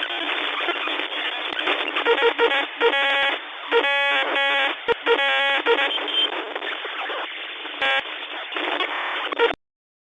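Radio-like static squeezed into a narrow, telephone-like band, with electronic beeps and tones breaking through around the middle. It cuts off suddenly near the end.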